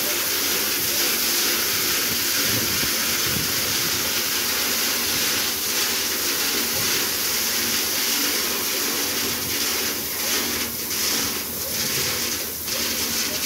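Dump truck tipping a load of gravel: a steady rushing hiss of stones sliding out of the raised tipper body, with the truck's engine running underneath. Scattered sharper clatters of stones come near the end.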